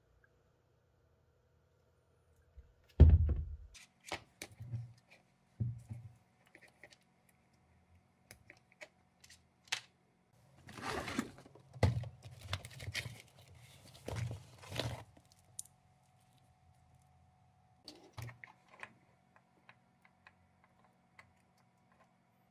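Workbench handling noises: a heavy thump about three seconds in and scattered small clicks of parts and connectors. About eleven seconds in come several seconds of rustling and crinkling as a fabric LiPo battery safety bag is handled. A faint steady hum sits underneath.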